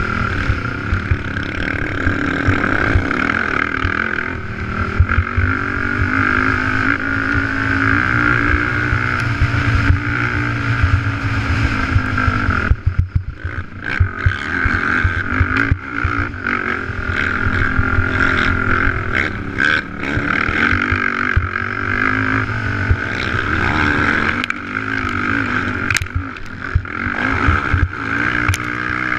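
A race ATV's engine running hard at speed, heard from on board the quad. The engine note drops away briefly about thirteen seconds in, as if the throttle is let off, then picks up again.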